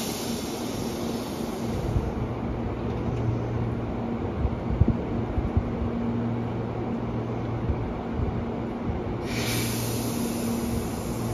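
Tobu 8000 series electric train standing at the platform, its equipment giving a steady low hum that fades in and out. A few sharp knocks come around the middle, and a hiss starts about nine seconds in.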